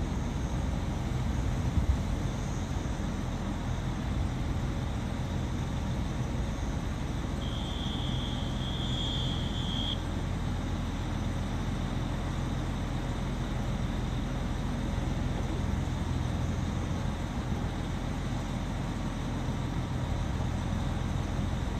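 Diesel train engine running with a steady low rumble that neither rises nor falls. A brief high steady tone sounds for a couple of seconds about eight seconds in.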